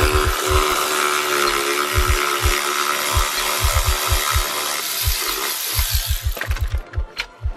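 Cordless electric ratchet whirring as it spins a bolt out of the seat hardware, running for about six seconds and then stopping, with a few sharp clicks after it. Regular low thumps sound underneath.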